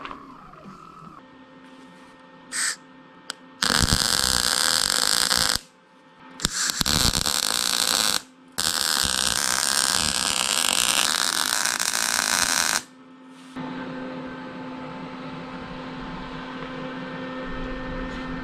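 Wire-feed (MIG) welder arc crackling in three long runs of a few seconds each while stitch-welding a thin sheet-steel door panel. A steady hum runs between and after the runs.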